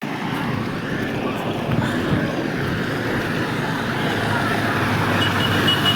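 Heavy rain pouring in a storm with wind, a steady rushing noise.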